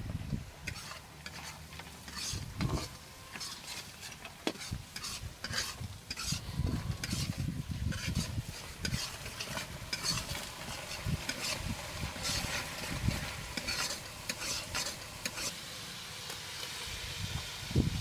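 A metal spatula stirring and scraping spice paste (masala) frying in a black wok, the paste sizzling. The scraping strokes come irregularly, several a second, and the sizzle grows louder in the last two seconds or so.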